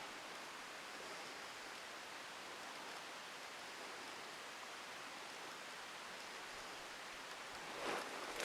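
Faint steady outdoor hiss, with rustling and a few clicks starting near the end.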